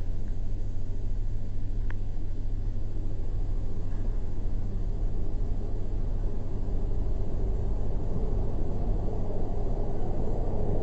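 Steady low rumble of outdoor background noise that stays at an even level, with no voices.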